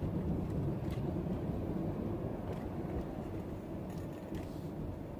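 Road and engine noise inside a moving car's cabin: a steady low rumble that eases slightly near the end.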